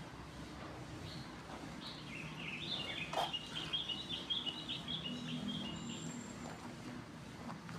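A bird twittering in a quick run of short, high chirps for about four seconds, over a faint low hum, with a single sharp click partway through.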